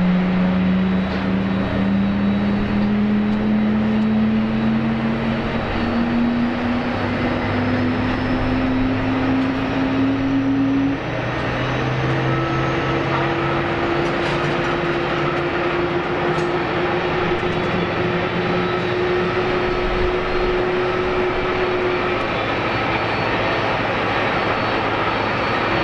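Jet engines of a Boeing 777-200ER climbing out after takeoff: a steady, broad rumble with a low hum that slowly rises in pitch over the first ten seconds or so, then holds a steadier higher hum.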